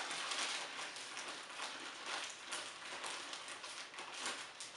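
A plastic shipping bag crinkling and rustling as it is handled and pulled open by hand, an irregular crackle that keeps going with little pauses.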